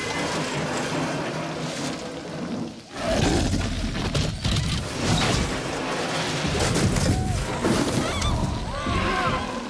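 Film soundtrack of heavy rain with a deep low rumble, dipping briefly about three seconds in. Wavering high squeals rise and fall near the end.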